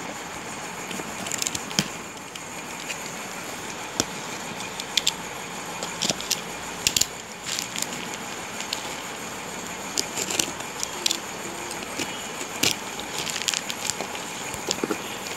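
Box cutter slitting the packing tape and cardboard of a parcel, with irregular crackles, scrapes and clicks as the tape and plastic packaging are cut and pulled.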